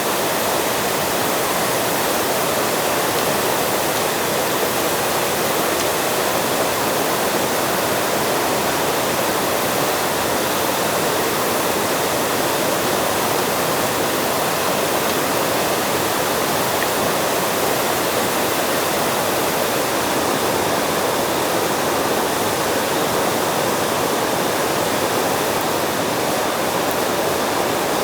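Steady, unbroken rushing noise, even in level throughout.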